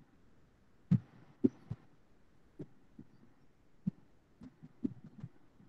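A scattering of soft, irregular thumps and clicks, about nine of them, unevenly spaced, over a faint background hum.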